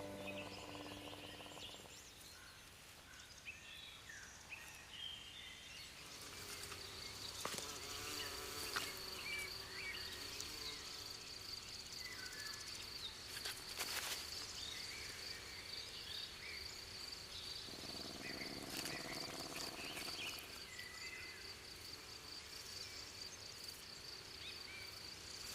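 Forest ambience at night-level quiet: an insect trilling steadily at a high pitch from about six seconds in, with scattered short chirps around it. Background music fades out at the start.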